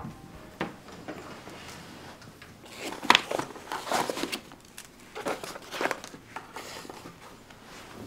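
Rustling and brushing of a canvas tote bag as flat items such as a notebook and cards are slid into its pocket, in a run of irregular scrapes loudest in the middle.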